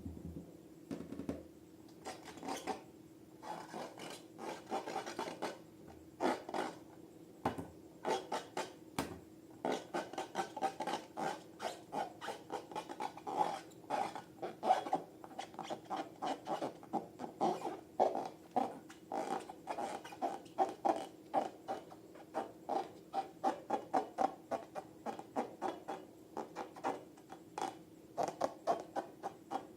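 Hands working slime: a quick, uneven run of short squishing, rubbing strokes, about two or three a second, busier from about ten seconds in, over a faint steady hum.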